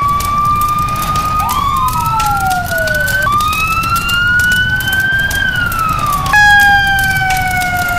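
Fire truck's electronic sirens wailing over a low engine rumble, two tones gliding up and down across each other. The pitch jumps abruptly about three seconds in and again about six seconds in.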